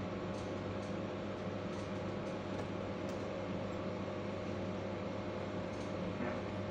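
Steady machinery hum aboard an LPG tanker under way: a constant drone with several unchanging tones, with a few faint clicks over it.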